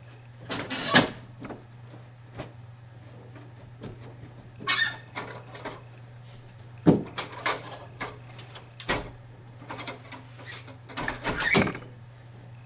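Irregular knocks and clicks from a carpet power stretcher being set and worked while carpet is stretched onto the tack strip, over a faint steady hum.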